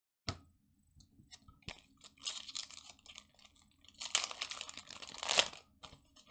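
Foil wrapper of a Pokémon booster pack crinkling and tearing as it is opened, in two rustling stretches, the second and louder one about four seconds in.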